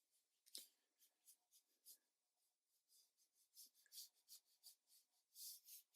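Very faint, scratchy short strokes of a watercolour brush working a mix of ultramarine blue and yellow paint, with a quicker run of strokes near the end.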